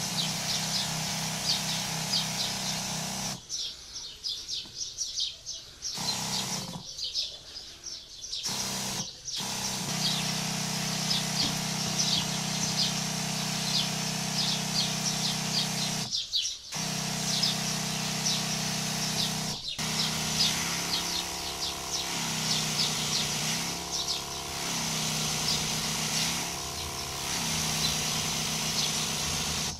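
Electric garden sprayer's pump running with a steady hum, cutting out briefly several times in the first twenty seconds and wavering in pitch after that, while it sprays a fine mist through a brass nozzle on the lance. Birds chirp throughout.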